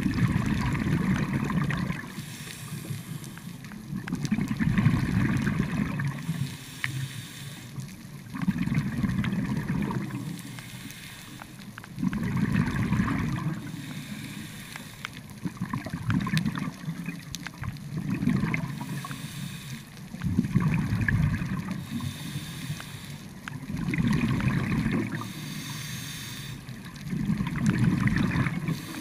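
Scuba diver breathing through a regulator underwater: a burst of exhaled bubbles about every four seconds, each followed by the short hiss of an inhaled breath.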